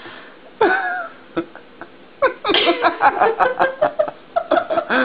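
People laughing in quick, rhythmic bursts through the second half, after a short vocal sound about half a second in.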